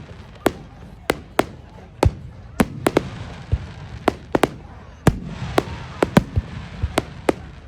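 Fireworks display going off: a rapid, irregular series of sharp bangs, two or three a second, over a continuous hiss of crackle.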